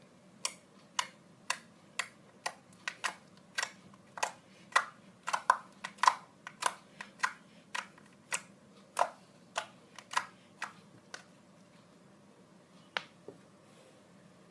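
Slime being poked with fingers, giving a series of sharp clicks at about two a second that stop about eleven seconds in, then two more near the end.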